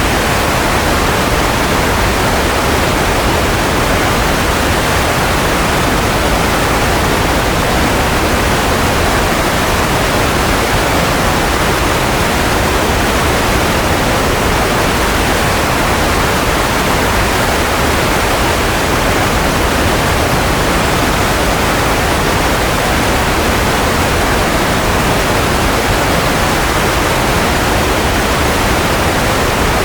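Steady, unchanging white noise: an even hiss spread across low and high pitches, with no hum, tone or rhythm in it.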